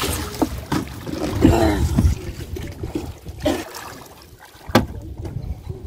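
Shallow river water sloshing and splashing around a person wading at the bank, with handling noises and a sharp knock a little after three-quarters of the way through.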